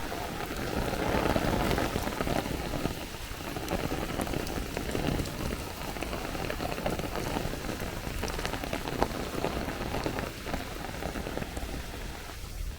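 Heavy thunderstorm downpour falling steadily, thousands of drops hitting hard surfaces, growing heavier for a moment about a second in.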